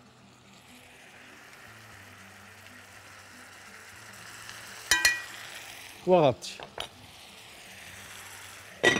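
Camel meat sizzling in a hot pot as a spoonful of vinegar goes in, the sizzle growing louder over the first few seconds. A sharp clink about five seconds in and another near the end.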